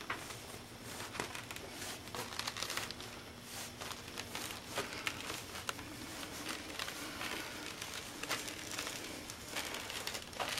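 Ceramic bathroom floor tiles crunching and crackling underfoot as bare feet step on them: scattered, irregular crackles, which the owner takes as a sign that something is wrong beneath the floor.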